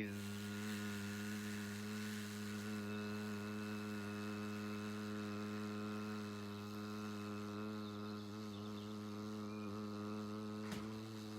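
A steady, unchanging low hum with a buzzy edge.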